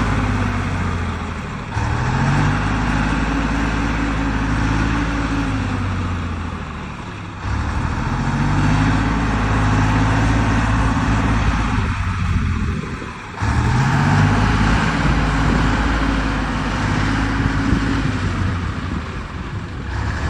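Ural-375 truck's V8 petrol engine driving, its pitch climbing and then easing off in long swells, with short drops in power about 2, 7 and 13 seconds in.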